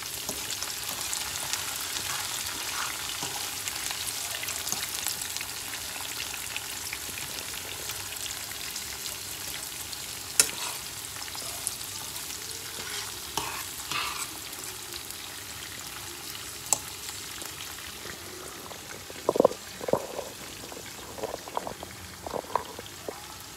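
Sliced onions and green peppers sizzling in hot oil in a frying pan, a steady hiss that slowly eases off. A metal fork stirs the vegetables, with a few sharp clicks and, in the last few seconds, a run of short scrapes and knocks against the pan.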